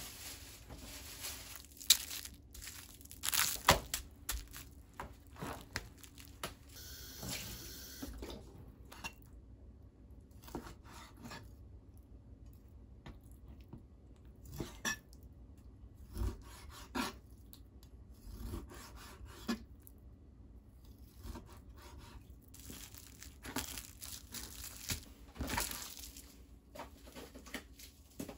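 Irregular taps and knocks of a kitchen knife on a plastic cutting board as raw chicken breast is cut into chunks, mixed with the rustle and tearing of plastic cling film.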